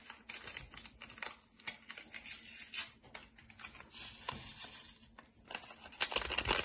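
Paper sachets of vanilla sugar crinkling and tearing as they are handled and opened, in irregular crackly bursts. A denser rustle comes near the end as a sachet is shaken out over the bowl.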